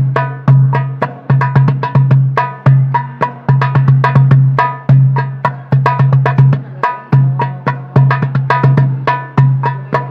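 Darbuka (goblet drum) played by hand in a fast dangdut koplo rhythm. Deep, ringing dum strokes are interleaved with quick, sharp tek and ka slaps, heard from inside the drum's body.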